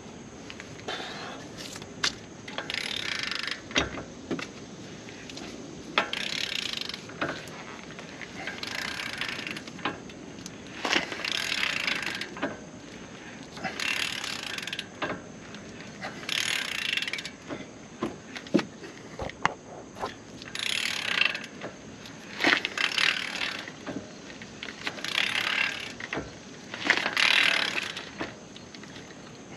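Torque wrench's ratchet head clicking on the return strokes while tightening a front axle nut toward 217 ft-lb. About a dozen bursts of rapid ratcheting, each about a second long and a few seconds apart, with single sharp clicks between them.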